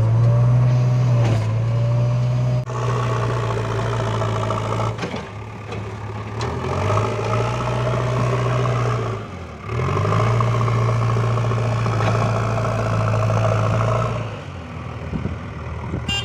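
Heavy diesel engine running steadily. Its pitch dips about five seconds in, dips again near ten seconds and revs back up, then eases off near the end.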